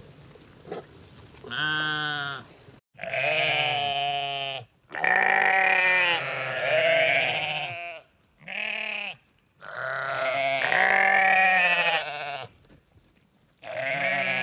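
Sheep bleating: a series of about six loud baas, some short and some drawn out for two or three seconds, with a quavering pitch.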